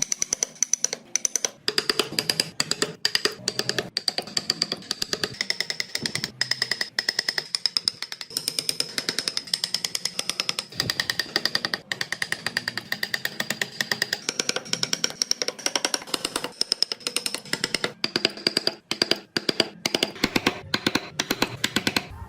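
Rapid, steady taps of a hammer on a wood-carving chisel, several a second, each with a high ring.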